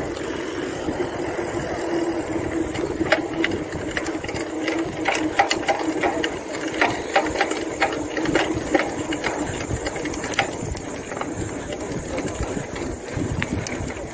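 Motorcycle engine running steadily, with a run of sharp clicks and rattles from about three to eleven seconds in.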